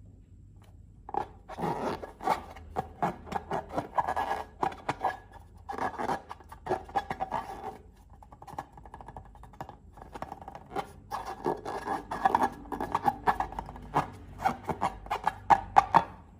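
Slime being mixed and squished by hand, making rapid sticky clicks and crackles in runs, with a pause in the middle.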